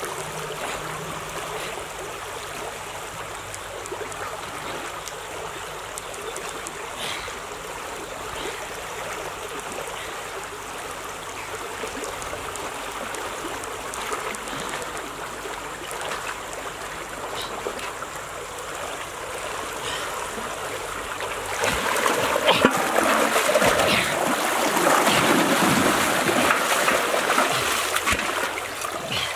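Shallow stream rushing over a riffle, a steady wash of running water. About two-thirds of the way through it grows louder and more uneven with splashing as a person wades through the water close by.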